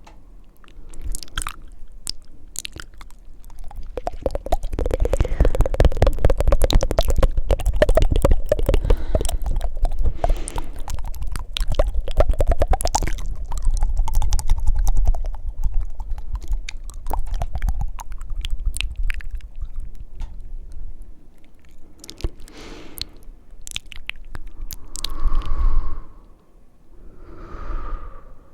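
Close-miked ASMR mouth sounds: fast, wet tongue flutters and clicks, densest for several seconds early on and thinning out, then a few short breaths near the end.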